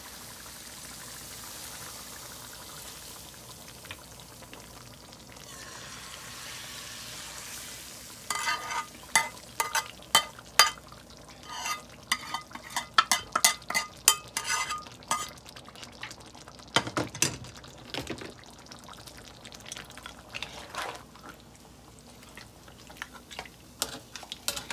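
Hot oil with fried coriander leaves and Kashmiri chilli powder sizzling softly, with a louder hiss for a couple of seconds about a third of the way in as it goes into the cooked meat. Then a spoon clinks and scrapes quickly against the pan for several seconds as it is stirred in, with a dull thump a little later.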